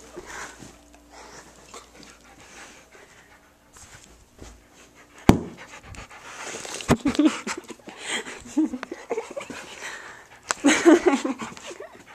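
Dog panting close to the microphone during play-fighting, louder in the second half, with two sharp knocks about five and seven seconds in.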